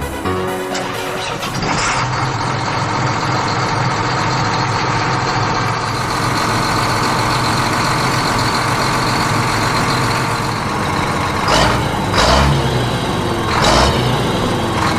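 Tractor engine running steadily, with several louder surges like revs near the end.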